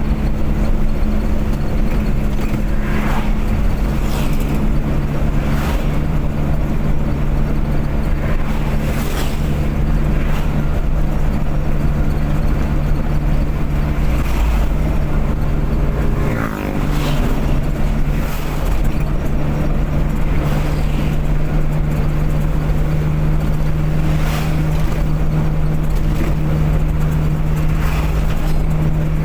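Car engine drone and road noise heard while driving at speed. Short swishes come every second or two, and the engine note dips briefly and shifts a little past halfway.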